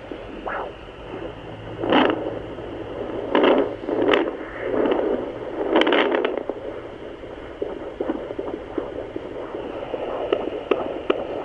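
Home fetal doppler's speaker giving whooshing static, with loud scraping bursts about two, three and a half, four and six seconds in as the probe is moved over the gel on a pregnant belly in search of the baby's heartbeat; faint regular beats come through near the end.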